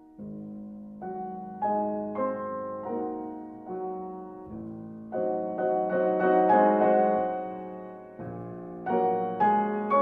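Background piano music: single notes struck one after another and left to ring, over held chords.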